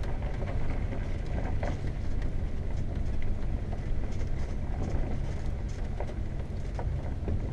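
Freight train of tank cars rolling across a steel truss bridge overhead: a steady low rumble with scattered clicks and clanks, heard from inside a motorhome cab with its engine running.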